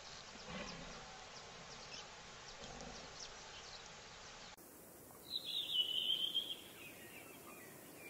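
Faint outdoor ambience with scattered short high chirps. After a cut, a louder high-pitched call lasts about a second and a half.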